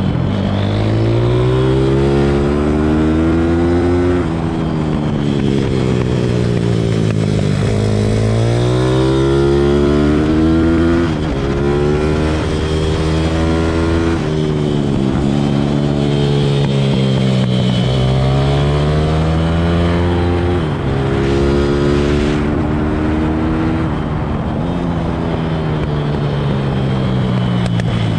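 Pit bike engine at full riding load on a track, its pitch repeatedly climbing as it accelerates and dropping away each time it slows for a corner.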